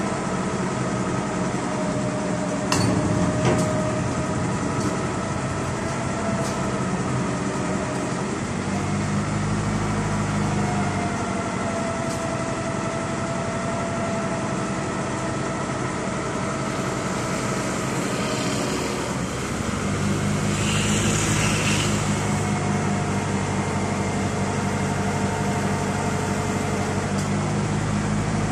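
Engine of a truck-mounted crane running steadily with a steady whine, growing deeper and stronger twice as the crane lifts a steel tank: for a few seconds about a third of the way in, and again through the last third. A few sharp metal clanks come near the start, and a short hiss comes about three quarters of the way in.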